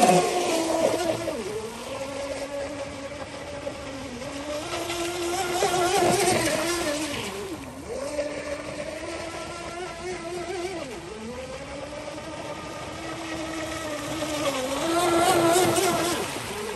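Aquacraft Lucas Oil RC speedboat running fast. Its motor note dips sharply in pitch several times and climbs back, over a hiss of water, and it swells louder twice.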